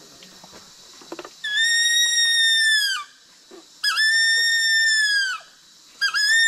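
A jungle animal call blown on a leaf held between cupped hands: long, high, steady whistle-like notes, each dropping in pitch as it stops. Two come about a second apart, and a third starts near the end.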